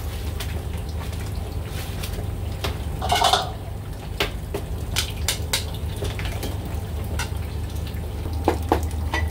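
Clatter of metal kitchenware at a noodle stall: a wire strainer, ladles and bowls knocking against pot rims over a steady low hum. The loudest is a brief clatter about three seconds in, with a few sharp knocks near the end.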